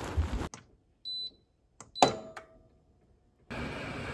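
Front-loading washing machine being started: a short high beep from its control panel about a second in, a click and a second beep about two seconds in, then steady water and running noise from the drum near the end.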